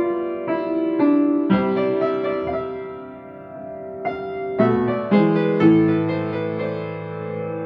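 Upright piano played: a slow melody in A minor, single notes ringing and fading over held lower notes.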